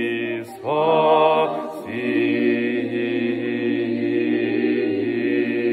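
Voices singing a liturgical prokeimenon chant in parts, holding long sustained notes on the closing phrase, with short breaks for breath about half a second and about two seconds in.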